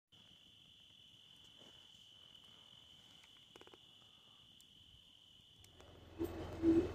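Crickets trilling in one steady, unbroken high tone, with a few faint crackles. About six seconds in it cuts off and a louder low sound with a steady hum takes over.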